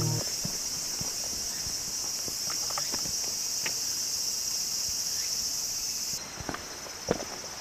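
A steady high-pitched insect chorus with scattered footsteps on a woodland path; the insect sound cuts off suddenly about six seconds in, leaving the footsteps clearer, with one louder step near the end.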